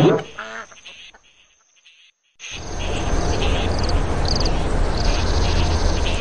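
Nature-ambience sound effect: after a brief call dies away and a short pause, a dense steady wash of sound sets in with a low hum underneath and insect chirps recurring every second or so.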